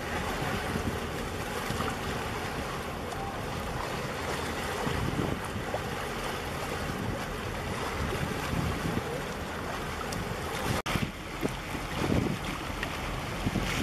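Wind buffeting the microphone over choppy sea water washing against concrete breakwater blocks: a steady rushing noise with irregular low gusts. The sound drops out for an instant about eleven seconds in, and the gusts are stronger after it.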